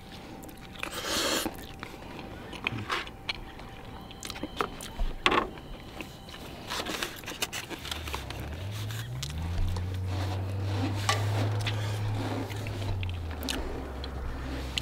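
Eating a burrito: chewing, with a plastic fork scraping and clicking against a styrofoam takeout box. About halfway in, a low engine hum rises, holds steady and drops away near the end.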